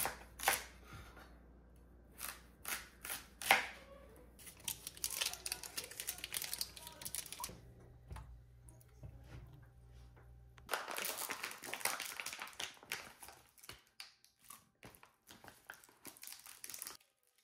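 Kitchen food-prep sounds. First a knife cuts into a daikon radish on a plastic cutting board with several sharp knocks, over a low steady hum. Later comes a stretch of plastic packaging crinkling and tearing as imitation crab sticks are unwrapped, followed by small scattered clicks.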